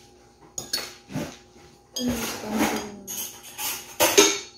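Metal spoon and ceramic bowls clinking and knocking as fish is served into the bowls: a couple of sharp knocks in the first second or so, then busier clatter, with the loudest knock near the end.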